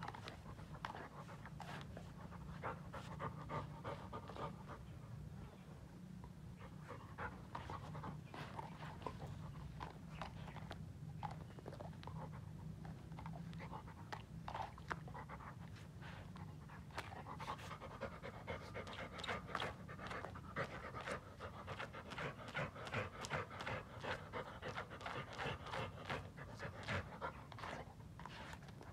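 Golden retriever panting rapidly and rhythmically while it noses at a crab, the panting growing heavier and louder in the last third.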